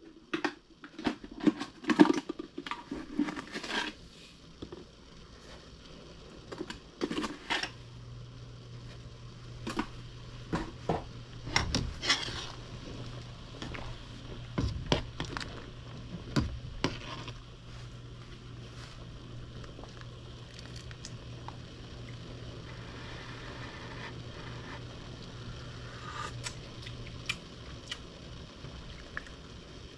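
A stainless steel ladle clinking and scraping against a stainless steel soup pot as it stirs and skims. The knocks come in a quick cluster at the start, then more scattered through the middle. A low steady hum sits under most of it.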